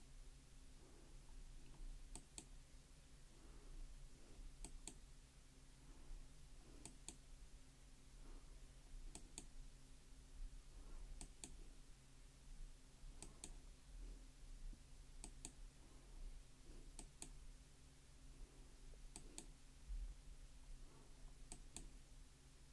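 Faint clicking at a computer: a quick pair of clicks about every two seconds, as the on-screen document is moved on line by line, over a low steady hum.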